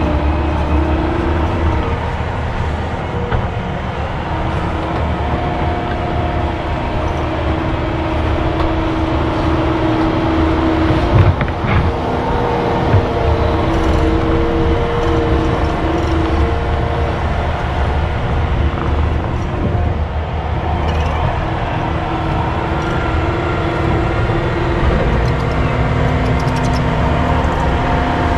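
Excavator's diesel engine running under load with its hydraulics whining, the pitch shifting as the machine works. A few sharp knocks, the loudest about eleven seconds in, typical of the bucket striking rock or dirt.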